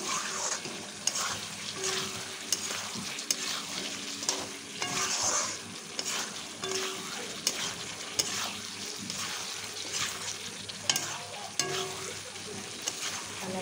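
A spatula stirring and scraping a thick, sizzling tomato-onion masala with eggs and potatoes in a kadai, ticking against the pan now and then. The masala is being fried down in oil (kosha) with the tomato just added.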